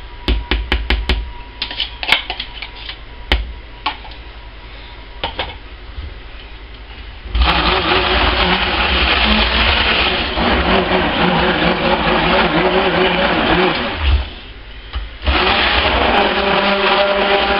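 Stick blender running in a tub of pink soap batter: it starts about seven seconds in, runs for about seven seconds, stops for about a second and starts again. Before it, scattered sharp clicks and knocks from a spoon in the bowl.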